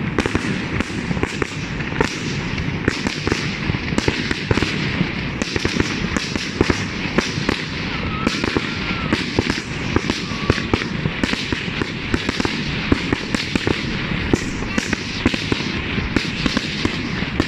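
Fireworks display: a dense, continuous barrage of bangs and crackling, several reports a second and no pause.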